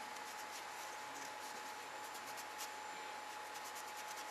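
Faint dry rubbing of a tissue wiping a green LED circuit-board strip clean with isopropyl alcohol, over a steady faint high tone.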